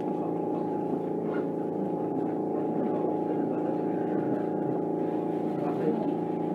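Tama Toshi Monorail 1000 series car heard from inside, running with a steady humming drone of several held tones.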